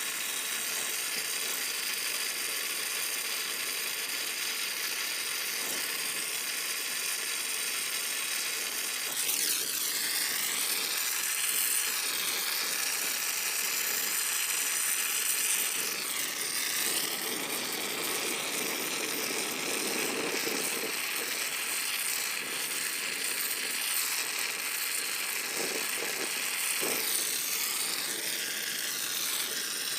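Brazing torch flame hissing steadily on copper line set, its pitch shifting a few times as the flame is moved or adjusted.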